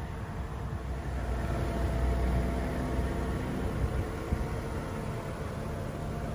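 An engine running steadily at idle, a low hum that swells a little about two seconds in.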